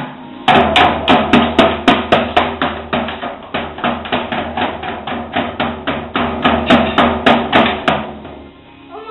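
Drum kit struck in a fast, even rhythm, about three to four hits a second, over a steady low tone. The drumming starts about half a second in and stops about a second before the end.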